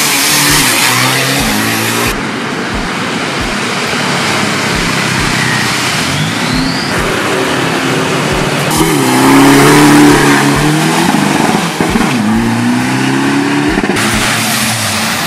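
Diesel pickup and SUV engines revving and accelerating hard at drag-race launches, their pitch sweeping up and down. The loudest run, about two-thirds of the way in, climbs and then falls away as a vehicle pulls off.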